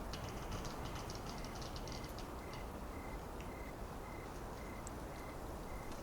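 Steady wind through forest trees, with a faint short high note repeating about twice a second and a brief spell of rapid high clicking or chattering in the first two seconds.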